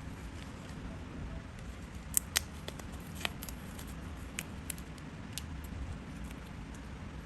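Paper being cut and handled during papercraft: scattered sharp clicks and snips over a low steady hum, the two loudest about two seconds in.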